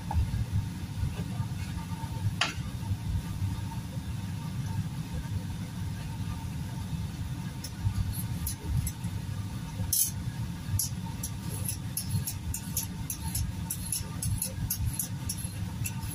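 Papaya being peeled by hand, a quick uneven series of short scraping strokes starting about eight seconds in, over a steady low rumble.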